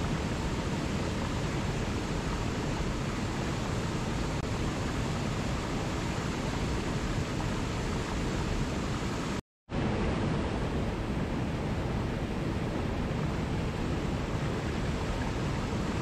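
Small waterfall and mountain stream rushing steadily over rocks. The sound cuts out completely for a split second about nine and a half seconds in, then resumes.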